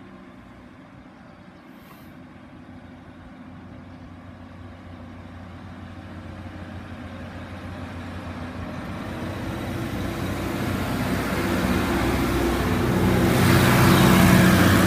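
Class 156 diesel multiple unit approaching the crossing, its diesel engine hum and wheel noise growing steadily louder and loudest near the end as it arrives.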